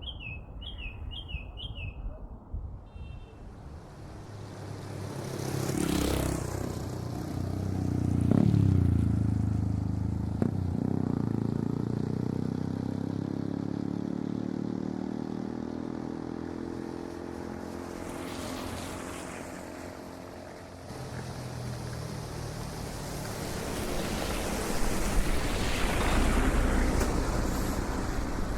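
A bird chirps a quick run of short calls at the start, then city road traffic takes over: several vehicles pass one after another, each swelling and fading, with an engine hum slowly shifting in pitch through the middle.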